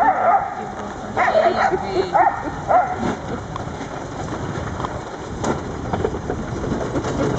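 A wheeled cart rolls over a gravel road behind a running sled dog team, making a steady, noisy rumble and crunch. Alaskan huskies give a few short, high yips in the first three seconds.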